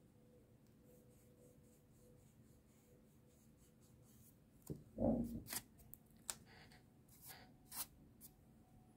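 Faint room tone, then about halfway through a dull thump against the sketchpad, followed by a few quick scratches and clicks as a mechanical pencil is moved over the paper and set down.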